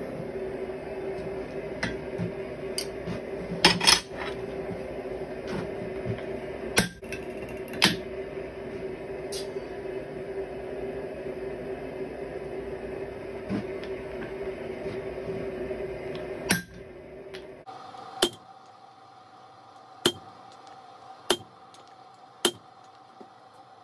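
Hand hammer striking hot steel on an anvil, single blows a second or so apart with a short metallic ring, in the last six seconds. Before that, a steady hum with a few scattered metal clanks.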